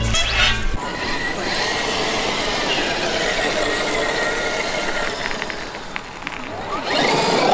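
Background music cuts off within the first second. Then the Traxxas X-Maxx 8S RC monster truck's brushless electric motor and drivetrain whir steadily as the truck drives across grass, with a louder surge near the end.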